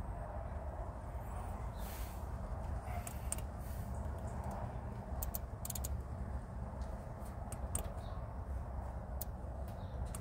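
Scattered sharp clicks from the Audi MMI control knob and buttons as they are turned and pressed to scroll through the service menu. The clicks come singly and in quick runs from about three seconds in, over a steady low rumble inside the car.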